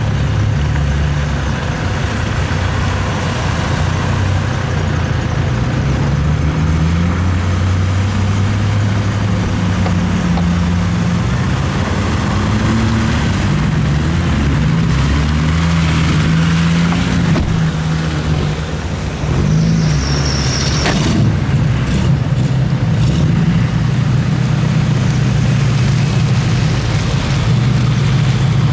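Land Rover Discovery 2's Td5 five-cylinder turbodiesel engine running under load off-road, heard from inside the cab, its revs rising and falling as it climbs and drives over rough ground. About two-thirds of the way through, a brief dip, then a short high squeak with a sharp knock.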